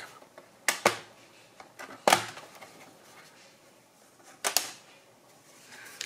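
Plastic bottom cover of a Sager NP8157 laptop being pried off, its clips snapping loose in a few sharp clicks. Two come close together about a second in, a louder one follows about two seconds in, and another pair comes later.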